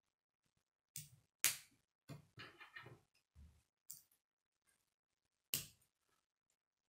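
Plastic K'nex rods and connectors clicking and snapping together as they are handled and fitted, a scatter of short clicks with the sharpest snaps about a second and a half in and again near the end.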